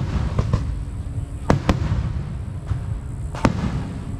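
Aerial firework shells bursting with sharp reports over a continuous low rumble: a few near the start, a quick pair about a second and a half in, and another about three and a half seconds in.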